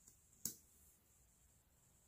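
Near silence: quiet room tone, broken by a single short click about half a second in.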